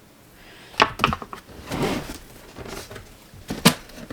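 A cardboard box and its packing being handled during an unboxing: a few sharp knocks, the loudest near the end, and a short rustle in between.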